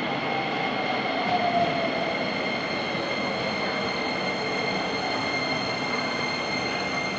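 Keisei 3000 series electric train pulling in and slowing to a stop, its Toyo IGBT-VVVF inverter whining under braking over a steady rumble of wheels on rail. A faint whine falls in pitch in the first couple of seconds, and a high steady squeal runs underneath.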